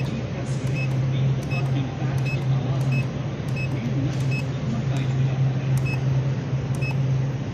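Banknote counting machine's keypad beeping at each button press, about nine short high beeps evenly spaced, as the serial-number report screens are paged through. A steady low hum runs underneath.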